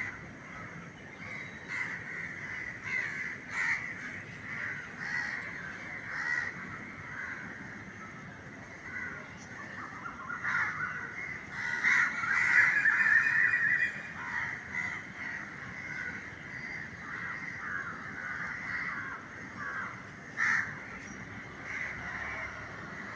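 Crows cawing over and over, several calls overlapping, with a loud, dense run of caws a little past the middle.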